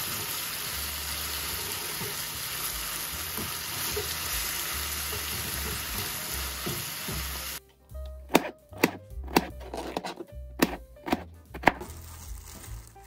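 Food frying in a hot pan, with a steady sizzle that cuts off suddenly about seven and a half seconds in. Then come about seven sharp kitchen knocks over the next four seconds, with background music underneath.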